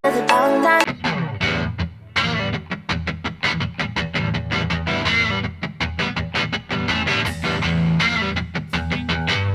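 Background music: a fast, plucked guitar line with some distortion over a steady bass.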